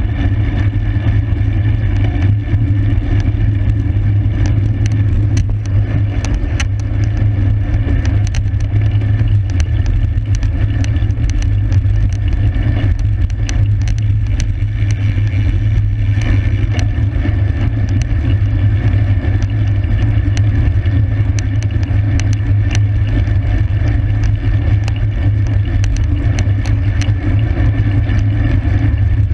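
Wind rushing over the microphone of a camera on a road bike being ridden in a criterium: a loud, steady low rumble, with scattered sharp ticks over it.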